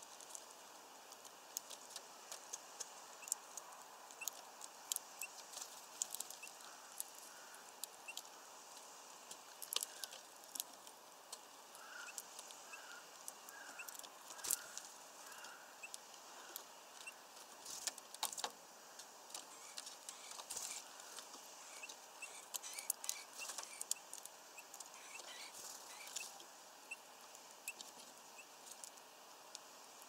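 Irregular sharp clicks and taps of Eurasian bullfinches at a sunflower-seed feeder, beaks working the seeds and husks and feet on the wooden perch. A few short strings of faint high notes come midway and again later.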